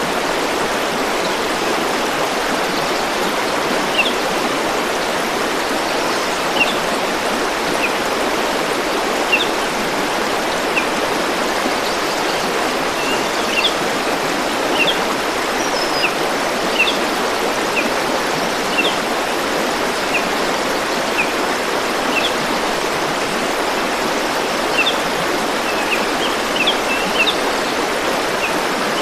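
Stream water rushing steadily over rocks, with brief high-pitched chirp-like notes scattered irregularly over it.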